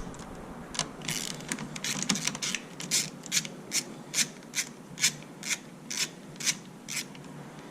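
Ratchet wrench with an 8 mm socket clicking in short strokes, about two a second, as the nut on a car's main battery fuse is loosened.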